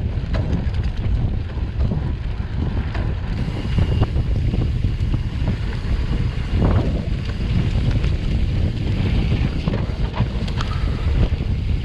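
Wind buffeting the microphone of a bicycle rider in motion: a steady low rumble with scattered clicks and rattles from the bike on rough ground.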